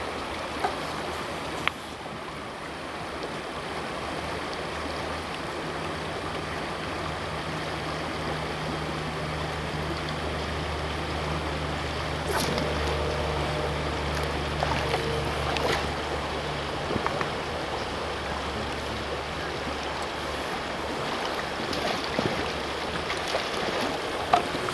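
Steady rush of a creek's current over a riffle, with a low hum through the middle and a few brief clicks.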